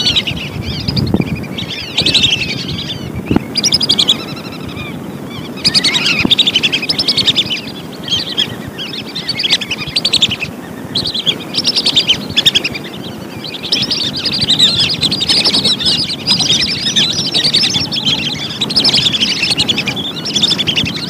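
A flock of whistling ducks calling: many short, high whistled twitters overlapping in quick runs, broken by a few brief pauses.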